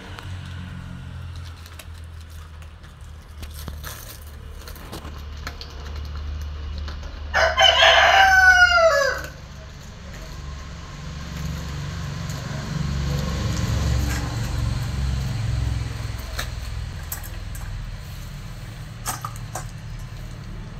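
A rooster crows once, a single call of nearly two seconds that falls in pitch at its end, about seven seconds in. It is the loudest sound, over a low steady hum and a few faint scattered clicks.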